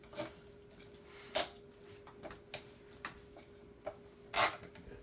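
PVC pipe and plastic tee fittings being handled and fitted together: several sharp separate plastic clicks and knocks with some rubbing, the loudest about a second and a half in and near the end.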